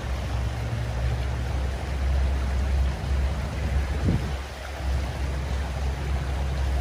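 Rushing water of a mountain trout creek, a steady noise, with a low rumble underneath.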